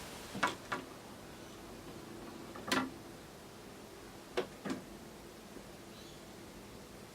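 Five sharp knocks or clicks over a steady faint hiss: a pair, a single one, then another pair.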